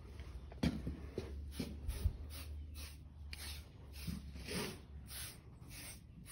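Quick, regular scraping strokes of a grooming tool over a horse's coat, about two or three a second, pulling out loose hair from a heavily shedding coat.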